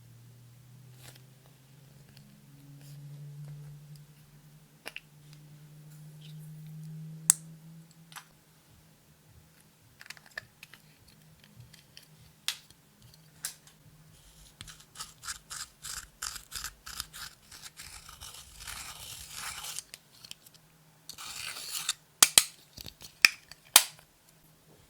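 Clear slime being kneaded and mixed by hand, making sticky clicks and crackling pops that grow dense in the second half. A faint low hum runs through the first few seconds.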